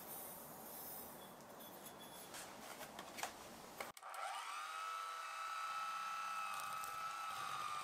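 Faint clicks and rustling, then about four seconds in an electric mixer's motor starts, whining up in pitch and then running steadily.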